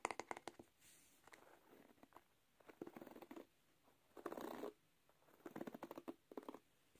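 Fingernails tapping quickly on the wooden back of a bamboo hairbrush, stopping about half a second in. Then come three short, soft bouts of fingers flicking and rubbing across the brush's wooden bristles, a crackly clicking and rustling.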